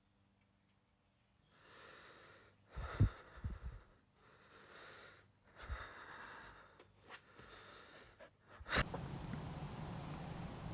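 A person breathing heavily, about five audible breaths a second or so apart, with a few soft knocks among them. About nine seconds in comes a sharp click, then a steady low hum.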